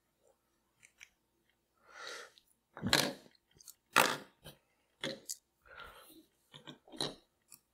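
Small plastic wireless-microphone transmitters and receiver being set down and slid about on a wooden tabletop: a few sharp knocks, the loudest about four seconds in, with softer scraping in between.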